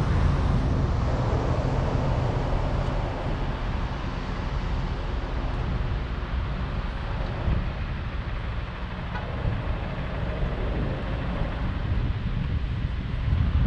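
Steady car noise: a low engine and road rumble, easing off slightly in the middle.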